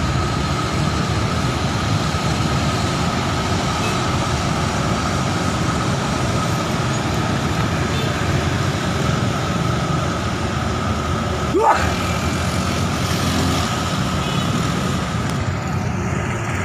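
Hydraulic excavator running steadily, with a constant whine above the engine noise and one short rising squeal about twelve seconds in.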